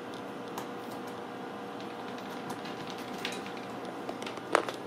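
Scattered light taps and clicks of kittens and a toy ball on a hardwood floor over a steady hum, with one louder knock near the end.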